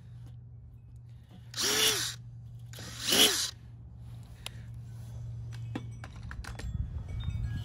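Power drill with a 1/4-inch bit boring through the kettle grill's steel in two short trigger bursts about a second apart, the motor pitch rising and falling with each. A few light clicks and taps follow, over a low steady hum.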